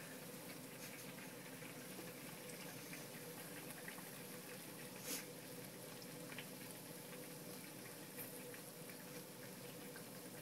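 Hot oil bubbling and crackling faintly around an egg-battered sandwich deep frying in a small saucepan, with scattered small pops and one brief louder crackle about five seconds in.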